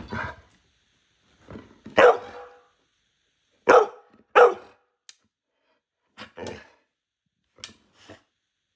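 Dog barking in short, separate barks. The three loudest come between about two and four and a half seconds in, and softer ones follow later.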